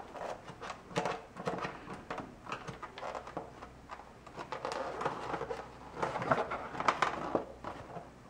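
Handling noise from an RC short course truck's plastic chassis and its packaging insert being held and turned by hand: irregular light clicks, taps and rustles, busiest about a second in and again late on.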